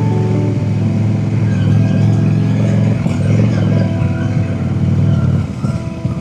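Honda Shadow V-twin motorcycle engine running, a deep steady sound that eases off near the end.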